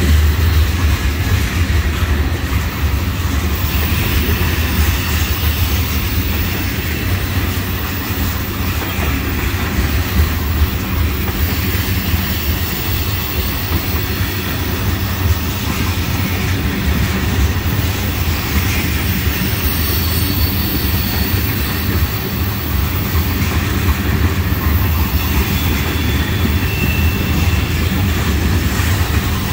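Freight train of tank cars rolling past close by: a steady, loud rumble of steel wheels on rail. A few brief, faint high squeals come from the wheels in the second half.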